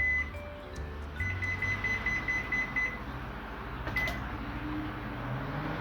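Microwave oven beeping: one high beep at the start, then a string of quick beeps for about two seconds, signalling the end of the heating cycle. A click follows about four seconds in, over a low hum.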